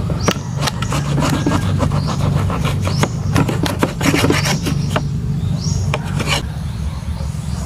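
A knife saws through a crusty bread loaf on a wooden cutting board, in repeated short rasping strokes of the blade through the crust, over a steady low rumble.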